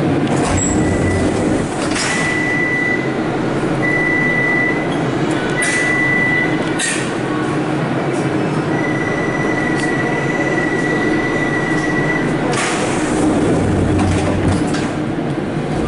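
Siemens VAL 208 automatic metro train standing at a station with its motors humming. A high electronic door warning tone sounds in several short beeps, then holds for about three and a half seconds, and the sliding doors close with a clunk.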